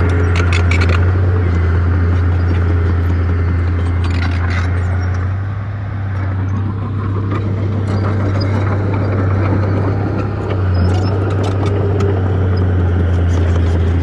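Heavy diesel earthmoving machinery running steadily with a deep, loud drone that eases off briefly twice, with scattered light metallic clicks over it.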